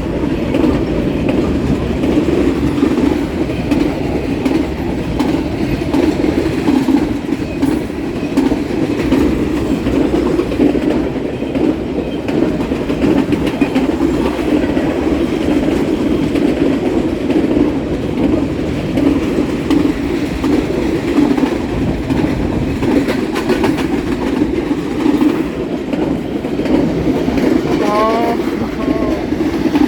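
A very long freight train's cars rolling past close by, a steady loud rumble of wheels on the rails that goes on without a break. A few short rising chirps come in near the end.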